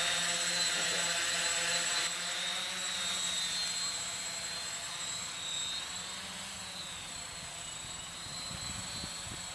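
Homemade 450-size quadcopter's four electric motors and propellers whirring with a steady high buzz while it hovers. The sound drops a little about two seconds in and fades slowly after that as the drone moves away.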